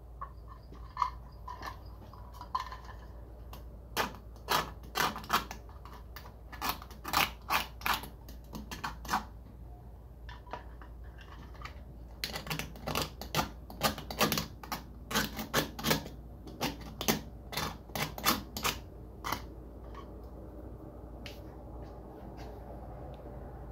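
Irregular sharp clicks and taps of small hard parts being handled, starting a few seconds in, pausing briefly midway and stopping a few seconds before the end.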